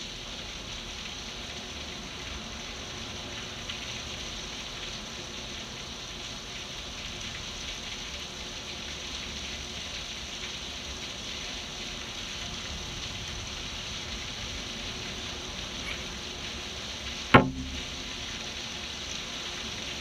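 Heavy rain pouring down in a steady, even hiss. About three-quarters of the way through comes a single sharp, loud thump that dies away within half a second.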